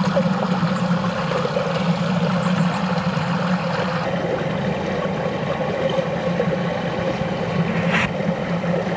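Steady low rumble of creek water rushing past a submerged camera, with a single click near the end.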